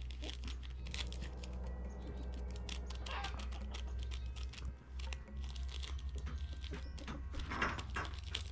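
Fingers working open a small seed packet: a run of small clicks and crinkles, busiest about three seconds in and again near the end, over a steady low hum.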